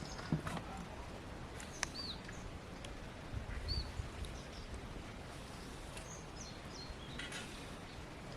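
Outdoor ambience with birds giving short chirps now and then, and a few sharp clicks or knocks, the first near the start.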